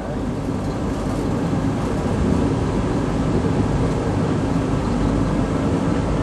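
Steady low rumble of a moving TTC rail vehicle.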